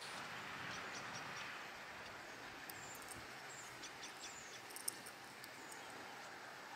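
Faint outdoor ambience: a soft, steady hiss with scattered short, high chirps and ticks, and one sharp click a little before five seconds in.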